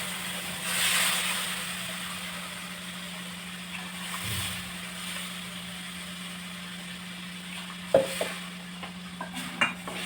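Water poured into a pan of ghee-roasted gram flour (besan), sizzling and hissing, with a surge about a second in that dies down to a fainter sizzle. A few sharp clinks of a utensil against the pan near the end.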